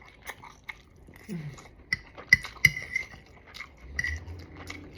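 Cutlery clinking and scraping against a plate during a meal, with mouth sounds of chewing; a few sharp clinks stand out about halfway through.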